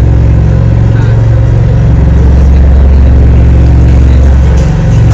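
Boat engine running steadily at cruising speed, a loud low drone heard on board.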